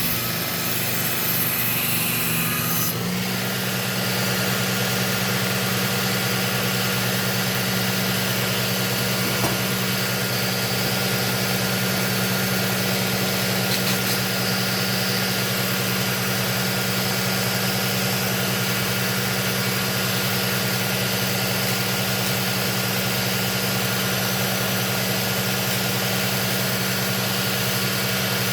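Work Sharp Ken Onion belt sharpener running steadily with a kitchen knife being sharpened on its Trizact A30 abrasive belt. The motor gives a steady hum, and a high hiss cuts off suddenly about three seconds in.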